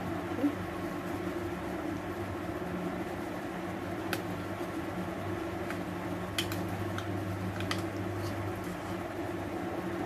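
Steady hum of an electric fan, with a few light clicks of a utensil against a steel plate as it cuts into a vegetarian artificial egg in thick curry, once about four seconds in and several more a little past the middle.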